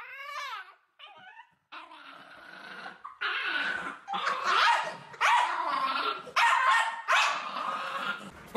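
A dog gives a short whine, then a string of about five drawn-out barks, each lasting up to a second.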